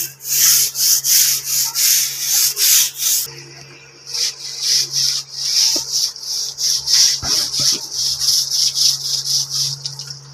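Hand scrub brush scrubbing back and forth over the woven strings of a charpai (rope cot) dusted with washing powder, in quick strokes about three a second. The scrubbing stops for about a second and a half a few seconds in, then starts again.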